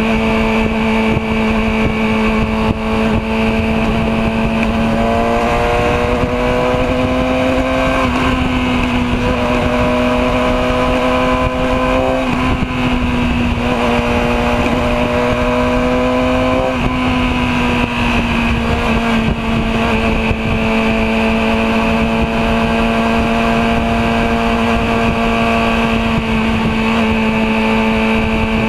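Yamaha R6's inline-four engine running at a steady highway cruise, heard from the rider's seat with wind rush. About a third of the way in, its pitch climbs several times with short breaks between, then eases back down to the steady cruising note.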